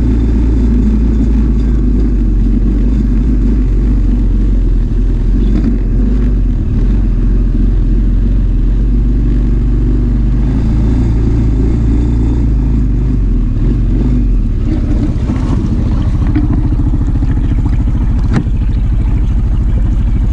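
CF Moto ATV engine running steadily with a loud, low hum, plus a single sharp click near the end.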